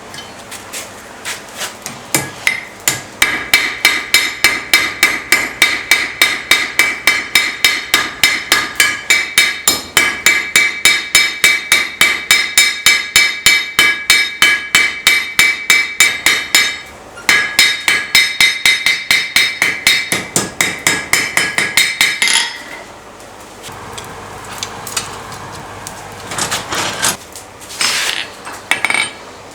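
Blacksmith's hammer striking hot steel on an anvil in a fast, even rhythm of about four blows a second, each blow ringing. The hammering stops briefly about two-thirds of the way in, then gives way to a few quieter, scattered knocks, and starts again at the very end.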